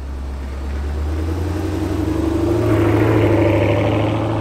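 A motor vehicle's engine running, its low pitch rising about a second in and then holding steady, as when picking up speed.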